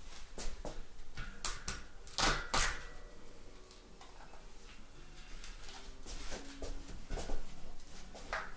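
Gorilla tape being pulled off the roll and pressed onto a bicycle rim bed: irregular short crackles and clicks, the loudest cluster about two seconds in, with further ones near the end.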